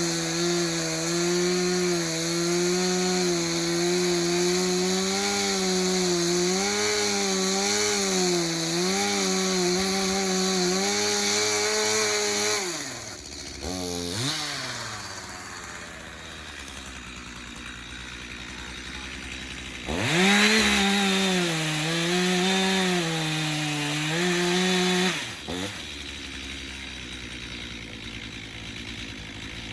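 Chainsaw engine at full throttle, its pitch wavering as it works through wood. It drops to idle about twelve seconds in, revs up again for about five seconds from around twenty seconds, then falls back to idle.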